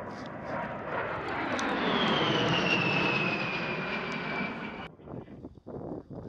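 A-10 Thunderbolt II's twin TF34 turbofan engines passing overhead: the jet rush swells and a high fan whine slides steadily down in pitch as the aircraft goes by. The sound cuts off abruptly about five seconds in, leaving fainter, uneven noise.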